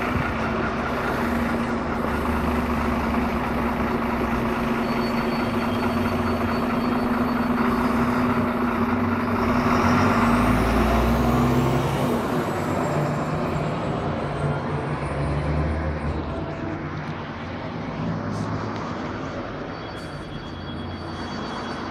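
Irisbus Citybus city bus running along, its engine and drivetrain heard from inside the bus at the door. The sound holds steady, then from about halfway it falls away as the bus slows toward a stop.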